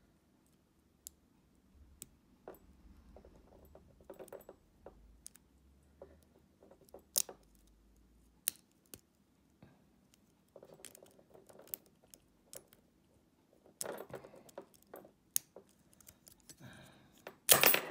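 A lock pick working the pins of a Brinks Commercial 50091 five-pin padlock: scattered faint metallic clicks and scrapes, some in quick little clusters. A louder metallic rattle comes just before the end.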